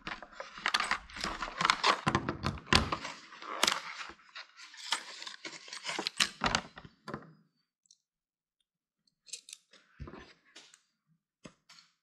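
Stiff plastic retail packaging being pulled open and handled, with crackling and clicking for about seven seconds. After a short pause come a few separate clicks and knocks as the metal snap ring pliers and a small box of tips are taken out.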